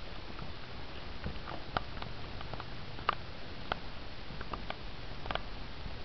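Faint, irregular soft taps and clicks from someone walking through the rooms with a handheld camera, over a steady low hum of room tone.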